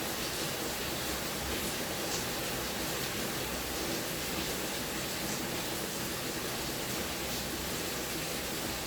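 Steady background hiss with no distinct sound events.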